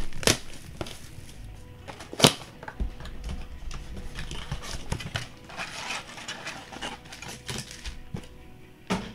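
Cardboard blaster boxes and card packs being handled and opened on a table: a few sharp taps and knocks, the loudest about two seconds in, with light rustling and clicking between. Quiet music plays in the background.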